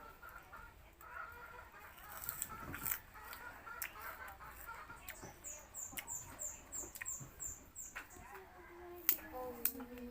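Raw sugarcane being bitten and chewed: scattered sharp cracks and crunches. Midway a bird chirps a quick run of about eight high notes.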